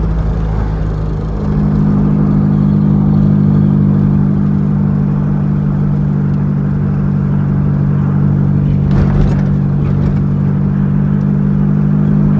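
Engine of the vehicle being driven, holding a steady drone at constant speed over road noise. The drone grows louder about a second and a half in. There is a brief rush of noise about nine seconds in.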